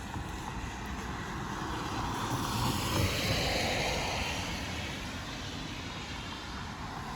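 A passing vehicle: an even rushing noise that swells to its loudest about three seconds in and then fades back down.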